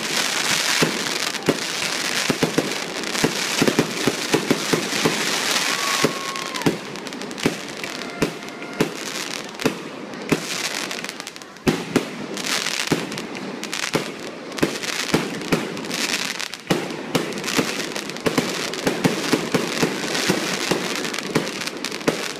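Fireworks display: a rapid, irregular series of sharp bangs from bursting shells over continuous crackling and hissing. The crackle is densest for the first six seconds or so, thins out, then builds again near the end.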